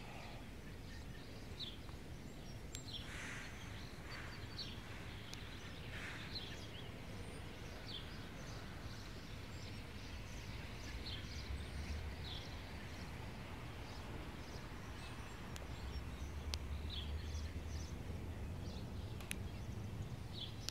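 Outdoor ambience: a steady low rumble that swells twice, with short bird chirps scattered throughout and a few faint clicks.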